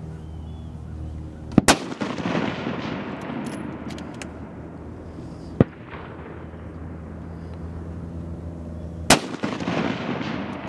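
Two rifle shots fired from the prone position, about seven and a half seconds apart, each followed by a long rolling echo. A single lighter sharp crack comes between them.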